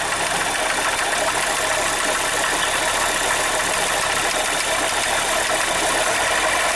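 Chevrolet Zafira 2.0 engine idling steadily with an abnormal noise from the front of the engine, behind the timing belt cover. The mechanic traces it to play in a worn water pump that has let the timing belt go slack.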